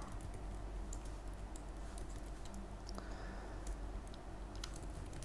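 Computer keyboard typing: faint, scattered keystroke clicks.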